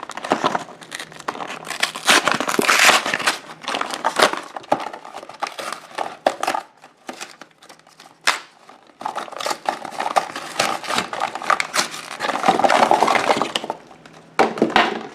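A cardboard sample box of K-Cup pods being opened and its packing torn and crinkled by hand: irregular rustling and crackling with sharp little snaps, easing off briefly about halfway through before starting again.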